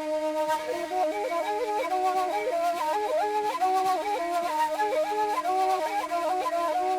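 A flute playing a melody of short notes that step up and down over a steady held drone tone.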